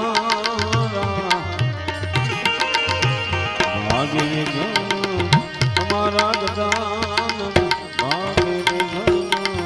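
Indian devotional music played live and amplified: harmonium melody over a steady tabla rhythm, with occasional sliding notes.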